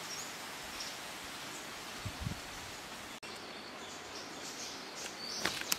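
Steady outdoor background hiss with a few brief, high bird chirps and a soft low thump about two seconds in.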